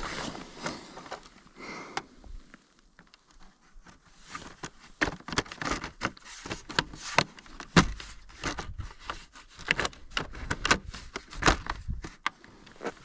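Irregular clicks, knocks and rustling of things being handled, coming thicker and louder in the second half.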